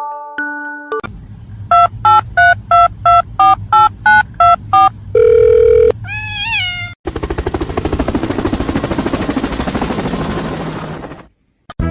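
Touch-tone telephone keypad dialing: about ten short two-note beeps, then a steady tone lasting about half a second. A short rising-and-falling tone follows, then about four seconds of harsh, rapidly pulsing buzz that cuts off abruptly.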